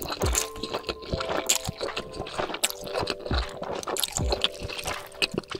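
Close-miked wet slurping and chewing of fried udon noodles, with many small sticky smacks and clicks of the mouth. Background music with held chords and a soft regular beat plays underneath.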